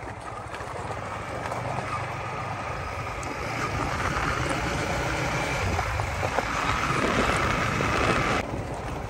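Yamaha motorcycle engine running while riding over a rough, broken gravel road, with steady rumble and road noise that slowly grow louder; a higher hiss cuts off suddenly near the end.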